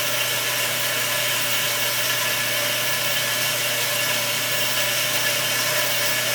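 FMB Phoenix mitering band saw, its 10/14 variable-tooth blade cutting steadily through solid steel bar under full speed and hydraulic feed. It makes an even, unchanging machine noise with a constant high hum in it.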